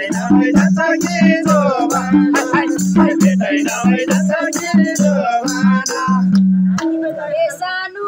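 Live Nepali dohori folk singing over a low, steadily pulsing beat, with sharp hand clapping throughout. The music breaks off about seven seconds in, and a single voice carries on.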